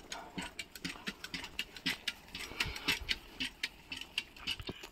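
Footsteps on a gravel road: a run of quick, irregular steps.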